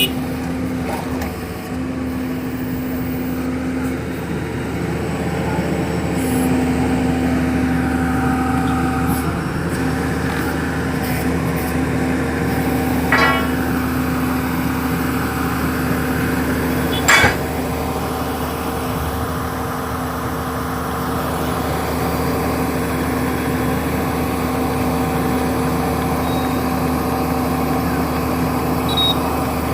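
Engine of a horizontal directional drilling rig running at a steady speed with a constant hum during pipe pullback. Two brief sharp noises stand out, about 13 and 17 seconds in.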